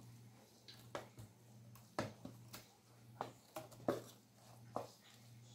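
A wooden spoon knocks and scrapes against an aluminium pot as shredded chicken filling is spooned out into a baking pan. There are about eight short, irregular knocks over a steady low hum.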